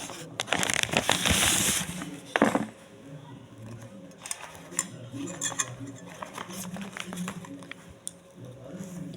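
Cutlery and dishes clinking: a spoon knocking on a plate several times. A loud rush of noise lasts about the first two seconds.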